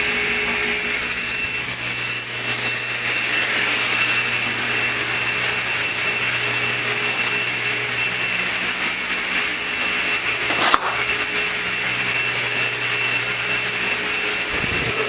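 Shop dust collector running steadily, a constant rushing hum through its ducting, with one sharp clack about eleven seconds in.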